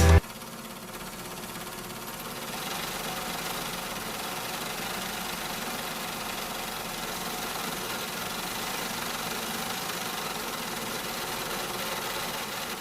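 A vehicle engine running steadily at idle. It gets a little louder about two and a half seconds in.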